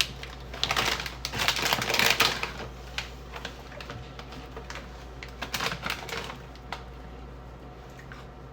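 Crunchy Goldfish graham crackers being chewed close to the microphone, a dense run of crackly crunches in the first couple of seconds, then scattered crunches.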